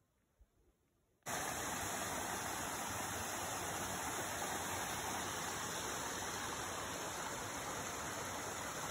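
A small mountain creek running over rocks, a steady rush of water that starts suddenly about a second in, after near silence.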